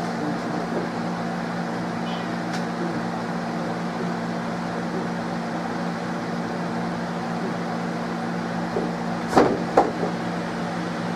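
A steady low hum at a constant pitch, with two sharp knocks about half a second apart near the end.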